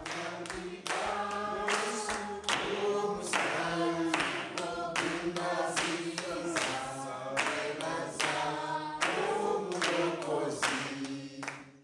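A group of voices singing unaccompanied in a church, with a steady beat of hand clapping; it cuts off right at the end.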